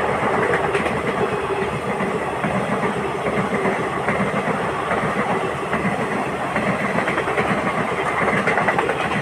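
Passenger train of ICF coaches running on the track: a steady rumble with the clickety-clack of wheels over rail joints. The horn is not sounding.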